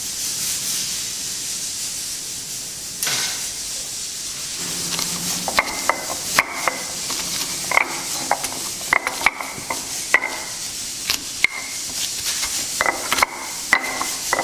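Stone pestle pounding and grinding garlic and coarse salt in a stone mortar (Indonesian ulekan and cobek), with sharp irregular stone-on-stone knocks that ring briefly, starting about five seconds in. A steady hiss runs underneath.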